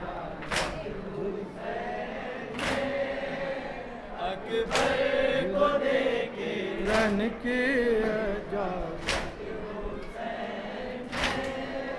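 A crowd of men chant a nauha, a Shia lament for Husain, in chorus. A sharp unison slap comes about every two seconds, the beat of matam (chest-beating).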